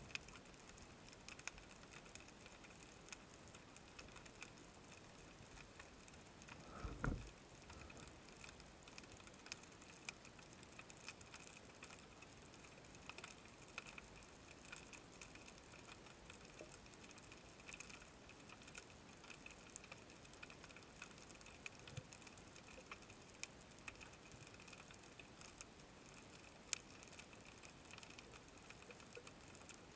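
Near silence underwater: faint scattered clicks and crackles over a low hiss, with one low thump about seven seconds in.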